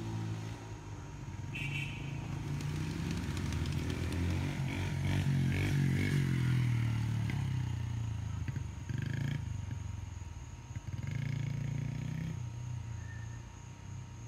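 Small child's dirt bike engine running as it is ridden across a yard, growing louder to a peak about halfway through, then fading as the bike moves away, with a brief dip and swell near the end.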